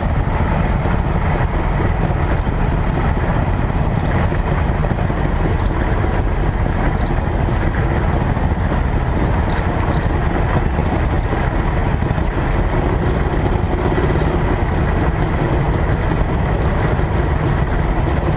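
Steady low rumble of a car driving at walking pace, heard through a microphone mounted outside on the hood, with faint high chirps here and there.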